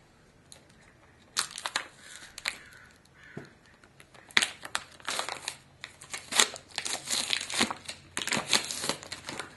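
Plastic packaging crinkling and rustling as a Screamin' Eagle head gasket is handled and unwrapped, in irregular crackly bursts starting about a second and a half in.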